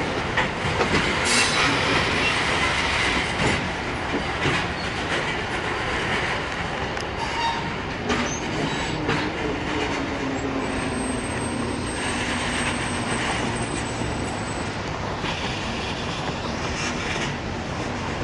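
Loaded covered hopper cars of a freight train rolling past, their steel wheels clacking over rail joints. A thin, high wheel squeal rises in the middle and lasts a few seconds.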